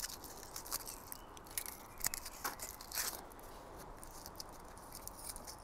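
Aluminium foil crumpled and pressed by hand into a ring around a beer glass: a run of faint crackles and rustles, thicker in the first few seconds and sparser after.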